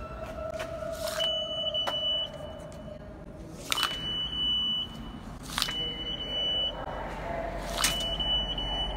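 MetroCard reader on a New York City subway turnstile beeping four times as a MetroCard is swiped through its slot again and again. Each beep is a high, steady tone of about a second, coming just after a sharp click from the swipe.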